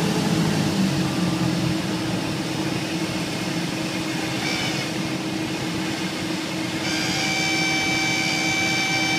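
Cessna 172S heard inside the cockpit in the landing flare, its engine throttled back to idle under a steady rush of air. The stall warning horn gives a brief chirp about halfway through, then sounds steadily as a reedy wail from about seven seconds in: the wing is nearing the stall just above the runway, as expected before touchdown.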